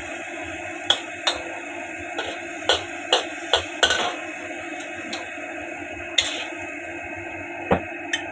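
A cooking utensil clinking against a pan while food is stirred: about ten sharp knocks at uneven intervals, most of them in the first half, over a steady hum.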